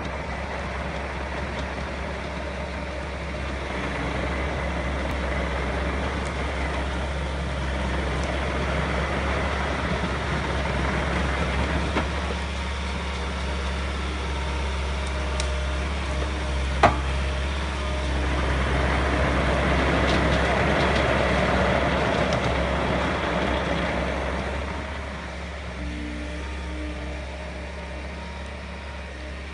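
Diesel engine of a tracked Mecalac excavator running while it drives and works its boom and log grapple. The engine swells and eases with the load and is louder for several seconds past the middle. One sharp knock comes about midway.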